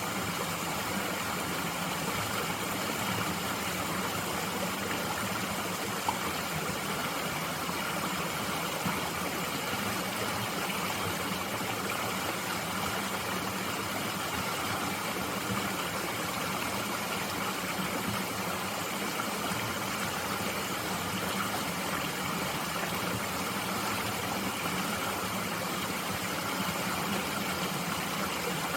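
Mountain stream flowing, a steady, even rush of water, with two small ticks about six and nine seconds in.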